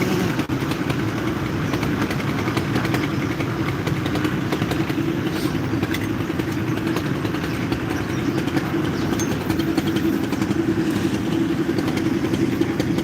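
Engine of construction machinery running steadily on a concrete pour, a continuous hum with a light, constant clatter over it.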